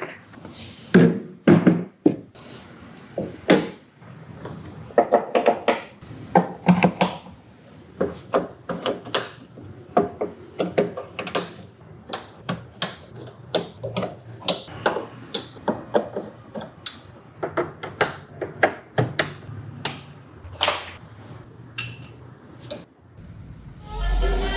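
A long string of irregular clicks and knocks, sharp and separate, several a second at times. About a second before the end, loud music starts with heavy bass, as if played through PA speakers and a subwoofer.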